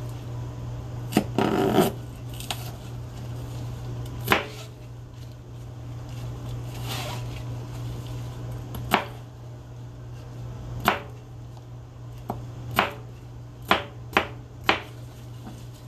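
Chef's knife chopping through produce onto a plastic cutting board: single sharp knocks a few seconds apart, coming quicker near the end, with a short rasp about a second and a half in. A steady low hum underneath.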